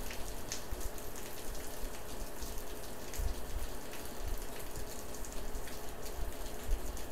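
Steady rain hiss with scattered drop ticks, on a security camera's microphone during a storm, with irregular low rumbles now and then.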